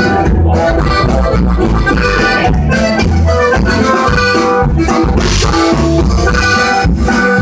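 Live norteño music: an accordion plays the melody over a drum kit beat, loud and continuous.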